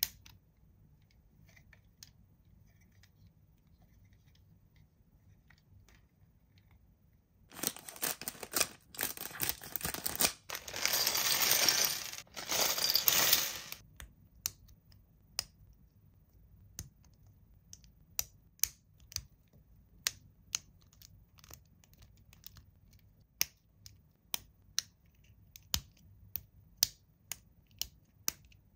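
Toy packaging being opened and handled by hand. Scattered light clicks and taps, with a burst of tearing and crinkling lasting about six seconds a quarter of the way in.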